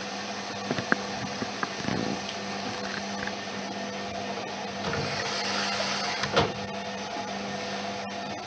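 Privileg 3020 washing machine in the wash phase of a cotton cycle: the drum motor hums steadily while the laundry tumbles, with a few knocks and a swell of swishing water about five to six seconds in.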